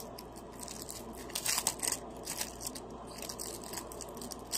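Packaging being opened by hand: irregular crinkling, rustling and tearing, busiest about one and a half seconds in.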